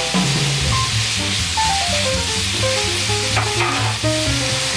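Sliced pork sizzling in hot oil in a frying pan, a steady hiss, with a few light clicks about three and a half seconds in, under soft melodic background music.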